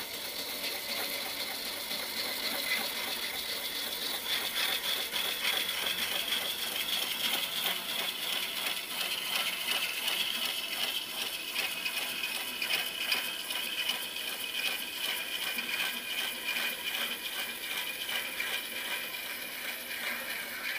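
Turning gouge cutting a large wooden vessel spinning on a lathe: a steady shaving hiss with a fast, even rattle, the high-pitched cutting tone growing stronger about four seconds in.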